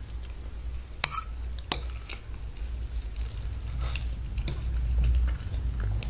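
A fork clicking against a plate a few times, over a steady low rumble.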